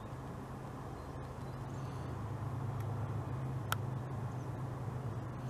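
Low, steady hum of distant road traffic, with a single faint click about three and a half seconds in.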